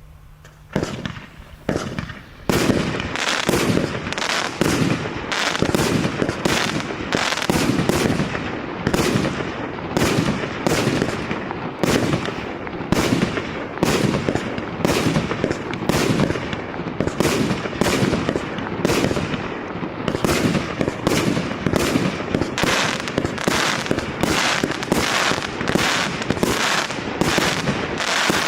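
Maxsem MC12180 consumer firework battery (cake) firing: a couple of single shots, then from about two and a half seconds in a rapid, continuous volley of launches and bursts with crackle.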